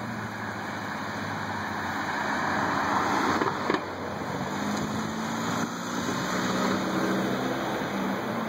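Street traffic: a car passes on the wet road, swelling to its loudest about three seconds in, followed by a car engine idling with a steady low hum.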